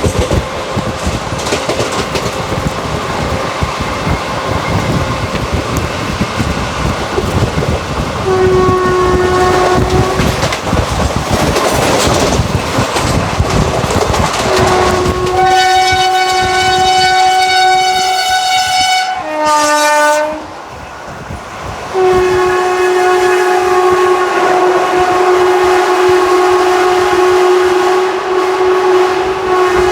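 WAG-5 electric locomotive's horn sounding over the running noise of an express train at speed. There is a short blast about eight seconds in and a longer one from about fifteen seconds. A brief horn of a different pitch comes near twenty seconds, then a long held blast from about twenty-two seconds on.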